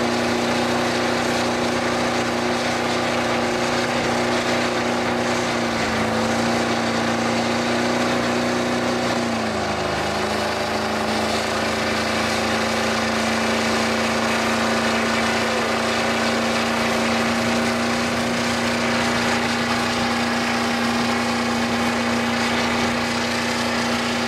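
Ford F-250 turbo diesel pickup engine held at high revs through stack exhausts during a long burnout, rear tyres spinning on the pavement. The engine note holds steady, dropping slightly in pitch twice in the first half.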